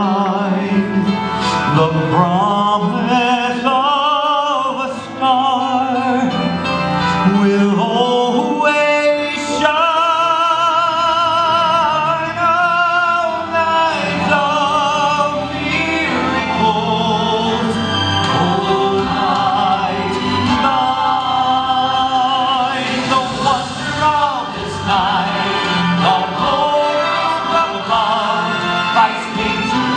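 A male solo voice singing in an operatic style with a wide vibrato over instrumental accompaniment, as a song in a stage musical.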